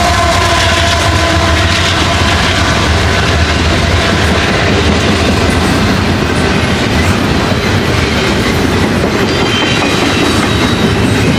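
A train passing close by: a loud, steady rush of wheels clattering over the rails. Its horn's steady tones trail off in about the first second.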